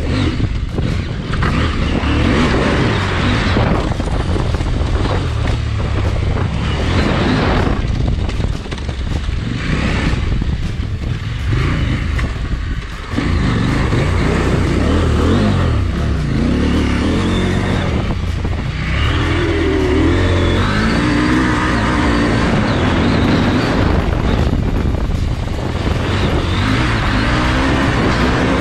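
Adventure motorcycle engine running while riding off-road, its pitch rising and falling with the throttle. About twelve seconds in it eases off briefly, then picks up again sharply.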